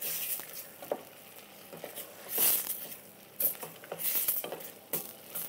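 Wooden spoon stirring and scraping chopped tomatoes and tomato paste in a stainless steel pot as they fry lightly, with a soft sizzle and a few separate scraping strokes.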